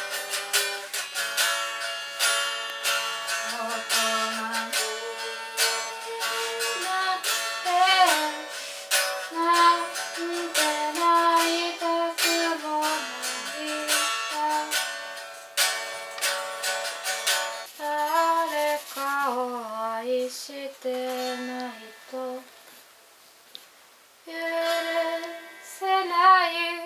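Electric guitar playing a slow melodic line, single notes picked one after another. It drops much quieter for a few seconds about twenty seconds in, then comes back.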